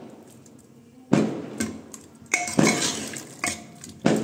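About five sharp firecracker bangs at irregular intervals, each dying away over half a second. Mixed with them, a steel ladle clinks against an aluminium pressure cooker with a short metallic ring.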